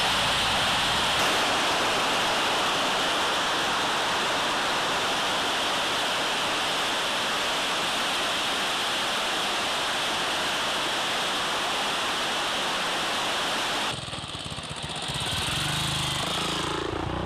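Waterfall rushing over rocks, a steady loud roar of water that cuts off suddenly about fourteen seconds in. In the last few seconds a small motorbike engine runs.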